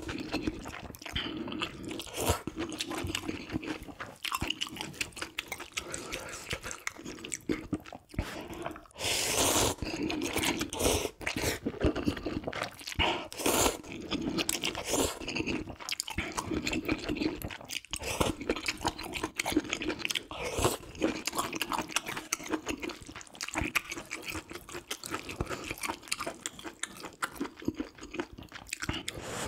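Close-miked eating sounds: a person chewing and crunching mouthfuls of ramyeon and kimchi, a dense run of irregular crunches, bites and wet mouth sounds.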